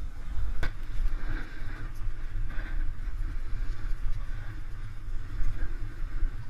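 Wind buffeting the microphone of a snowboarder's action camera during a run down a groomed piste, a steady low rumble with the hiss of the board sliding over packed snow. One sharp knock comes just over half a second in.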